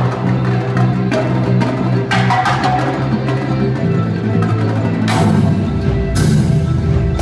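Winter percussion ensemble playing: marching snare, tenor and bass drums over a sustained low bass line from the electric guitars and synth keyboard, with marimba. Cymbal crashes ring out about five and six seconds in.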